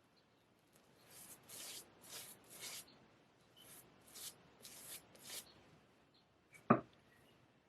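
Straight razor scraping through lathered stubble in about eight short strokes, two runs of four, then a single sharp click near the end.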